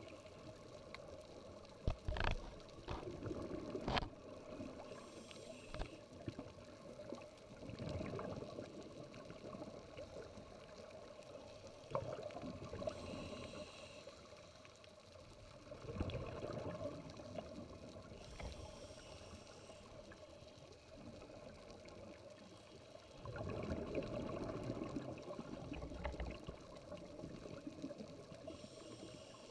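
Underwater audio from a diver's camera: a steady wash of water with swells of bubbling gurgle about every eight seconds, like a diver's exhaled breath, and a few sharp knocks in the first few seconds.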